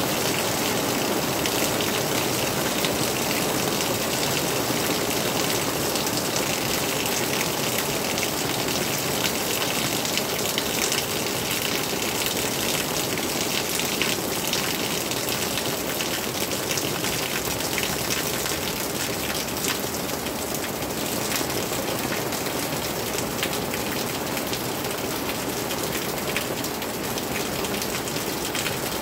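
Steady rain falling, a dense, even patter of countless drops.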